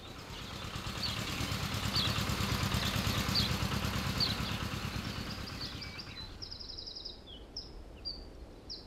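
A motor vehicle's engine passes by, swelling for a few seconds and then fading out about two thirds of the way in, while birds chirp throughout and sing more clearly with short trills once it has gone.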